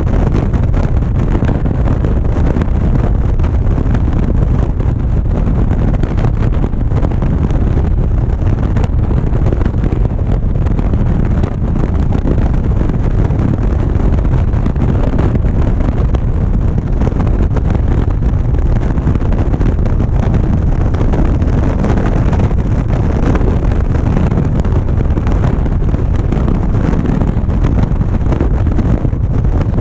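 Steady wind roar on the microphone of a camera mounted on a moving motorcycle cruising at road speed, with the motorcycle's running and road noise mixed in underneath.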